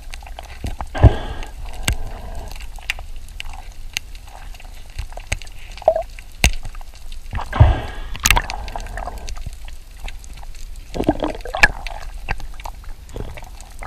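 Underwater sound: gurgling, bubbling water in a few bursts, with scattered sharp clicks throughout.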